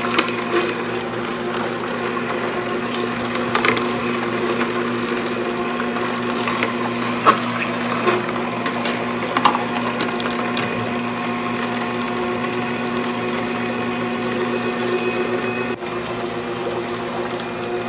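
Slow juicer's motor and auger running steadily with a hum, crushing green apple. A few sharp clicks and knocks sound in the first half.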